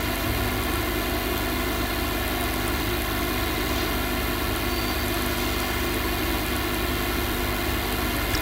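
A steady, unchanging buzzing hum with hiss underneath, like a machine or electrical drone.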